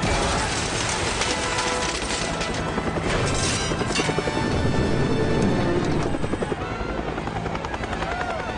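Film soundtrack: a helicopter's rotor chopping close by, with music playing underneath and a few sharp hits about three to four seconds in.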